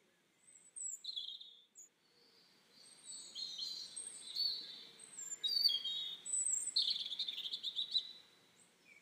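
Small birds chirping and singing: a scatter of short high calls and trills, a few at first and more continuous from about three seconds in, over faint outdoor background noise.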